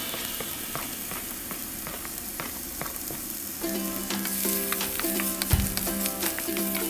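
Diced onion sizzling in hot oil in a frying pan, with clicks of a wooden spatula against the pan as it is stirred. Background music comes in about halfway through.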